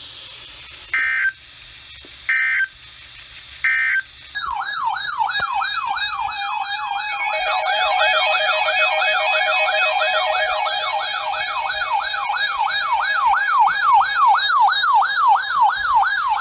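Three short data-tone bursts, the end-of-message signal of a NOAA Weather Radio emergency alert. About four seconds in, a loud electronic siren starts a fast yelp, sweeping up and down two to three times a second; a second siren tone joins it a few seconds later.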